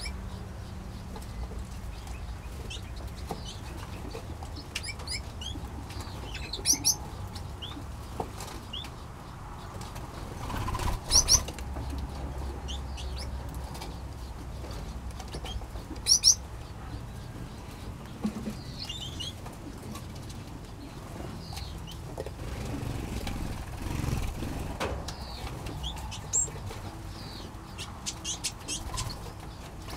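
Small aviary birds, finches and Bourke's parrots, giving short high chirps and calls scattered throughout, a few of them louder, over a steady low rumble.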